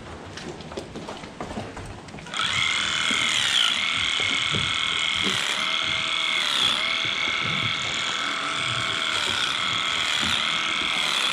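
Electric clippers switched on about two seconds in and running steadily while trimming a cow's tail switch, their hum dipping briefly in pitch every second or so. Before that, low scuffing and knocks.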